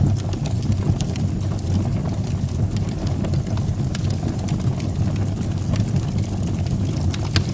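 Fire burning in a fireplace: a steady low rumble of flames with frequent small crackles and pops, one sharper pop near the end.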